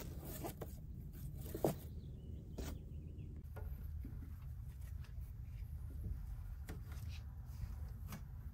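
Fabric of a mesh car window cover rustling and rubbing as it is handled and pulled over a door frame. Sharp crinkling strokes come in the first few seconds, then quieter rubbing with a few light clicks over a low steady rumble.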